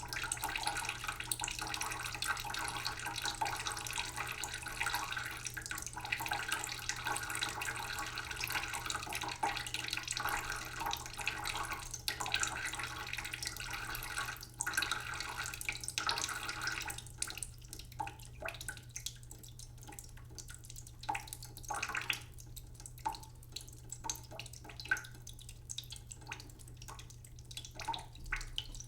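Tap water running slowly into a cooking pot in a sink, a steady trickling splash. About two-thirds of the way through the flow thins to scattered separate drips and splashes.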